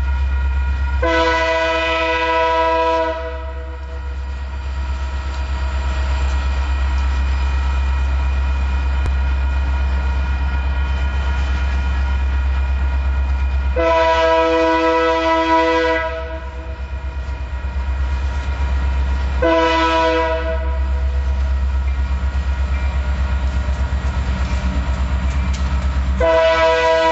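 Union Pacific SD60 diesel locomotive's multi-note air horn sounding the grade-crossing signal: two long blasts, a short one, then a final long blast, over a steady low rumble.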